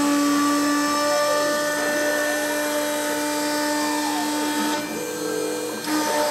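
CNC engraving machine running: the steady whine of the engraving spindle, with motor tones sliding up and down as the cutter traces a circle. Near five seconds in the sound shifts briefly as the head moves on to the next position.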